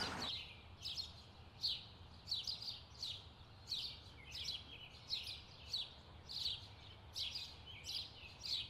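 A small bird calling with short high chirps, repeated evenly about one and a half times a second.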